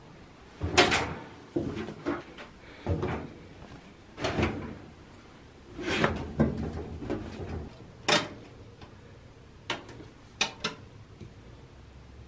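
A string of separate knocks and clunks from a top-loading washer and dryer being handled while laundry is moved: lid and door thumps, with a few sharper clicks in the later part.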